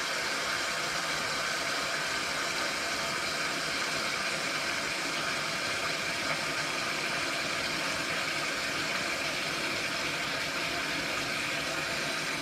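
Water from a kitchen tap pouring steadily into a large pot, filling it.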